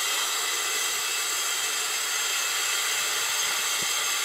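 Water running steadily from an outdoor shower tap into a plastic Scrubba wash bag as it is filled for hand-washing laundry, a continuous hiss.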